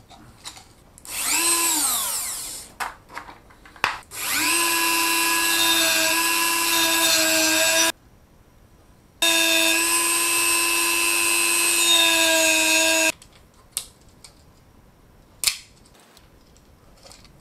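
Handheld rotary tool (Dremel type) running in short bursts. First a brief spin-up and run-down, then two runs of about four seconds each at a steady high whine, stopping sharply each time. A few light clicks from handling come between the runs.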